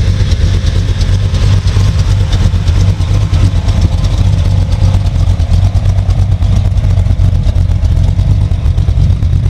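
A car engine running loudly with a steady low exhaust rumble.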